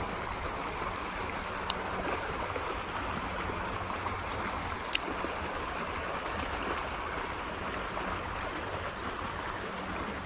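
Steady rush of flowing stream water, with a single sharp click about five seconds in.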